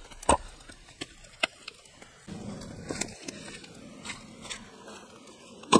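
A hatchet chopping wood: a few sharp knocks about a second apart, then a low steady rustle with scattered crackles, and one loud knock near the end.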